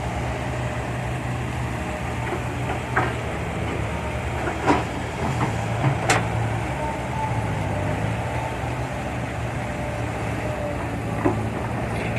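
Diesel engine of a Kobelco SK120-5 excavator running steadily while digging, with a few sharp knocks, the loudest about four and a half and six seconds in.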